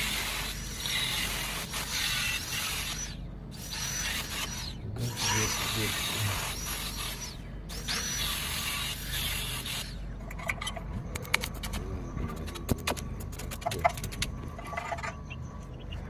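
Electric arc welding on thin hollow steel tubing: a crackling hiss in several runs separated by brief pauses. About ten seconds in, the hiss stops and gives way to scattered sharp metallic taps and clicks.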